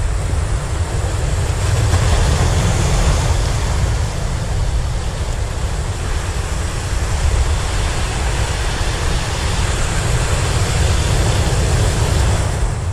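Sea surf breaking and washing over the boulders of a rocky breakwater, a steady rushing hiss, with a low rumble of wind on the microphone.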